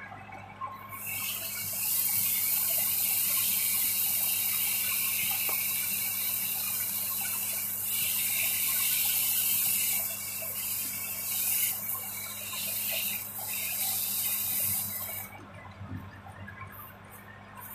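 Sandpaper pressed against a turned wooden spindle spinning on a wood lathe, making a steady hiss that starts about a second in and stops a few seconds before the end. Under it the lathe motor hums steadily.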